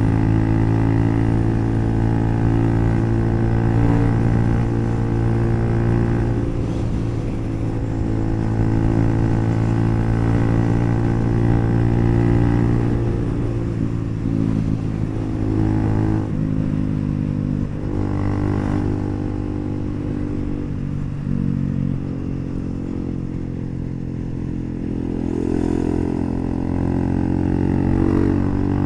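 Bajaj Pulsar NS400Z's single-cylinder engine through an aftermarket HP Corse exhaust, running steadily while riding. Brief breaks in the note come about two-thirds of the way through, then it goes softer and picks up again near the end.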